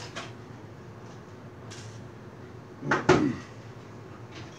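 Two hard knocks in quick succession about three seconds in, as the plastic housing and circuit board of a wireless access point are handled and shifted.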